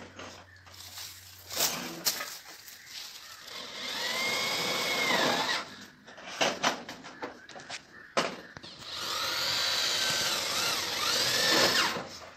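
Power drill driving screws through corrugated metal roofing sheets, in two runs of a few seconds each, the second starting about nine seconds in, its whine gliding up and down in pitch. Sharp knocks and clicks of handling on the metal roof come between the runs.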